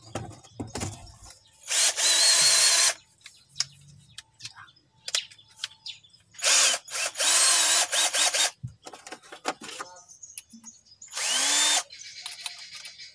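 Cordless drill-driver running in three bursts, the longest stop-start, its motor whine rising as each burst begins. Clicks and knocks of handling come between the bursts.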